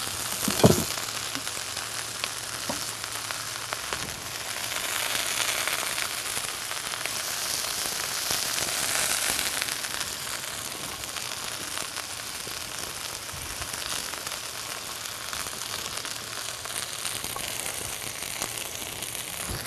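Peppers and beans sizzling as they stir-fry in butter in a hot skillet, a steady frying hiss that grows a little louder for a few seconds midway. A brief loud sound comes just under a second in.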